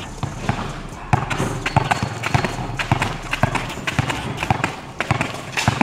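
Basketball dribbled hard and low on a concrete court: quick, repeated bounces, several a second, with the player's sneakers scuffing and stepping between them.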